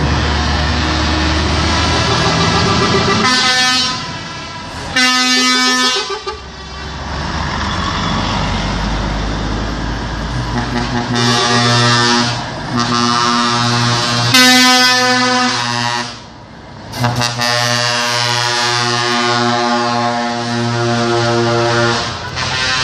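Truck air horns sounding long, loud blasts one after another, with truck engine rumble underneath. There are brief breaks between blasts, notably about four, six and sixteen seconds in.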